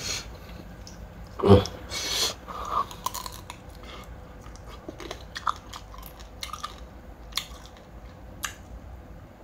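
A person eating raw crab salad close to the microphone: chewing and crunching with many small scattered clicks. There is a short, louder sound about one and a half seconds in.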